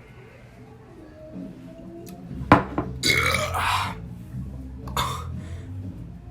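A person burping loudly after chugging a big bottle of fizzy orange Fanta: one long burp of nearly a second, then a shorter one, the gas of a very carbonated drink. A sharp knock comes just before the first burp.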